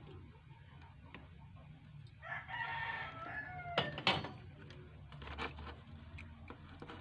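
A rooster crows once, about two seconds in, for about a second and a half, its pitch falling at the end. Two sharp clicks follow just after it, the loudest sounds here, with a few fainter clicks later over a steady low hum.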